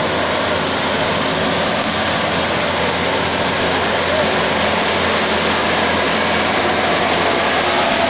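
Metal World rice combine harvester's engine running steadily under load as the machine cuts and takes in standing rice.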